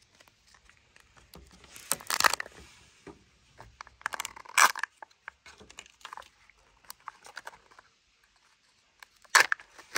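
A Kinder Joy egg being opened by hand: the wrapper tears and crinkles in several short bursts, with small plastic clicks and rustles in between.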